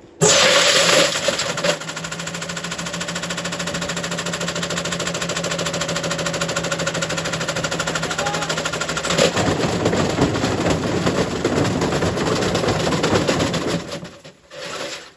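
Candy washing machine spinning with a loose hard load hammering inside the drum: a loud, rapid, continuous clattering over a steady motor hum that starts suddenly. About nine seconds in the hum drops out and the clatter turns rougher, then it dies away near the end.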